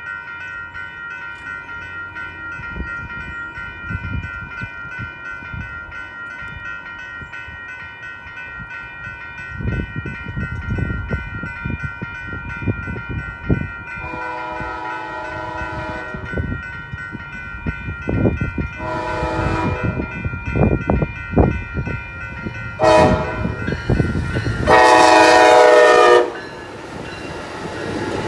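A railroad crossing warning bell rings steadily while an Amtrak Pacific Surfliner train approaches with a growing rumble. About halfway through its horn begins the crossing signal: a long blast, a shorter one, a short one, then a long, loud blast as the train reaches the crossing.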